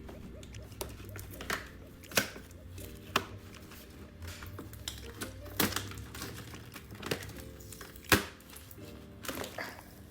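Background music with stepped low tones, under sharp clicks and taps and some crinkling from a toy box and its plastic packaging being handled. The taps fall irregularly, about one every second or so, and the loudest comes just after 8 seconds in.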